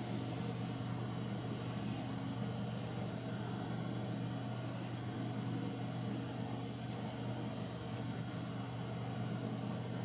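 A steady low electrical-type hum with an even hiss over it, unchanging throughout; no distinct event stands out.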